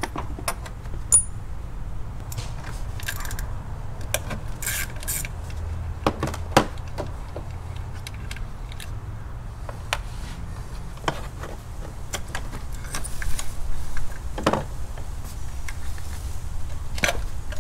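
Metal hand tools clicking and clinking as a spark plug socket and extension are worked in the spark plug wells to take out loosened plugs, with a brief hiss about five seconds in and a low steady hum underneath.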